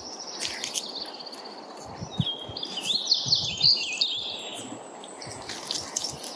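Wild songbirds singing: a fast high trill in the first second, then a louder, more complex warbling song about two to four seconds in.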